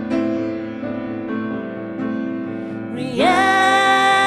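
Piano playing chords, then a singer comes in on a long held note, sliding up into it, about three seconds in.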